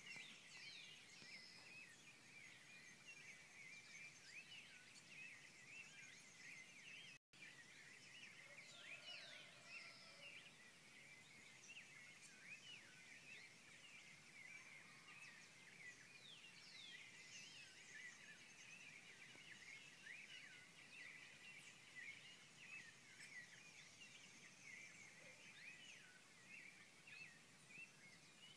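Faint dawn chorus: many birds chirping and calling at once, short quick notes overlapping without a break, with the sound cutting out for an instant about seven seconds in.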